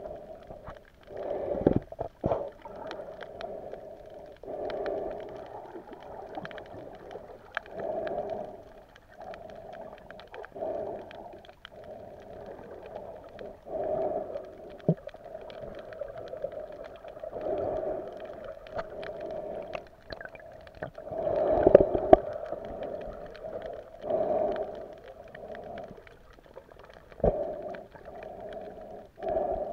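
Muffled underwater sound picked up by a submerged camera: a steady low hum that swells and fades every couple of seconds, with a few sharp knocks near the start and one near the end.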